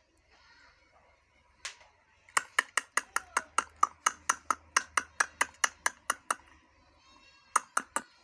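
Rose-ringed parakeet calling in a fast run of about twenty short, sharp calls at about five a second, then three more after a brief pause near the end.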